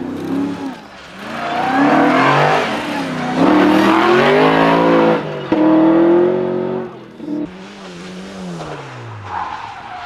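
Rally car engines on a tarmac stage: one car accelerates hard away from a junction, its engine note rising through two gears with a short break at the change, then near the end another car's engine falls in pitch as it slows for the corner.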